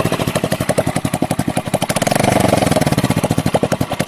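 Hero Splendor's single-cylinder four-stroke engine running with loud, rapid exhaust pulses, picking up a little about two seconds in. The exhaust is blowing through a silencer pipe that has rotted through and split open at the top.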